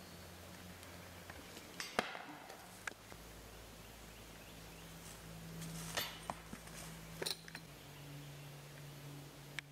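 Faint steady low hum that shifts pitch twice, with a few sharp clicks.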